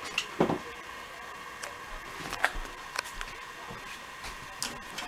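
A few light knocks and clicks, spaced irregularly, over a faint steady hum.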